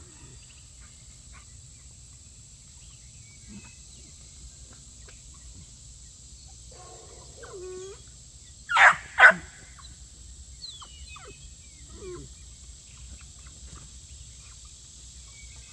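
A dog barks twice, about half a second apart, near the middle, with a few fainter calls before and after.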